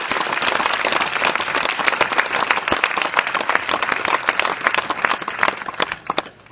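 Crowd applauding, many hands clapping at once, dying away near the end.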